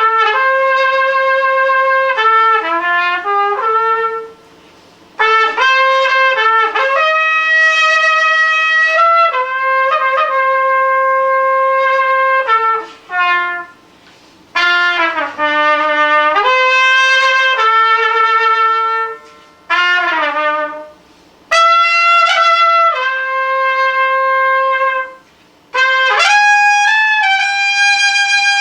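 A single horn playing unaccompanied in an improvised solo: phrases of held notes and quick runs, broken by short pauses about every five to seven seconds.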